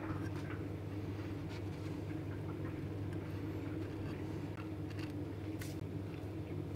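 Steady low machine hum, with faint light taps and rustles as pieces of a katsu sandwich are set down on a ceramic plate and a bunch of leafy greens is handled.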